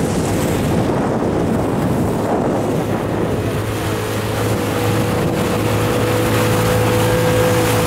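Small river boat's motor running under way, with wind buffeting the microphone and water rushing past the hull; a steady engine hum stands out more clearly about halfway through.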